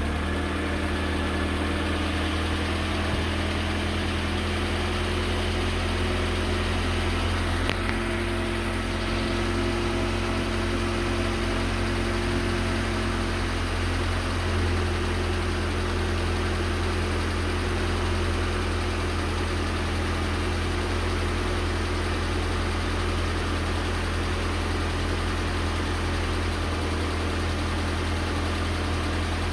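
ZMZ-406 inline-four petrol engine idling steadily, with the knock from under the valve cover that the owner is recording it for.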